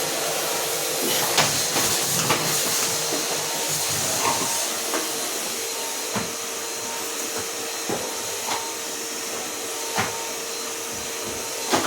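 Henry cylinder vacuum cleaner running steadily, a hiss with a constant whine, as it is worked over a rug. A few sharp knocks stand out now and then.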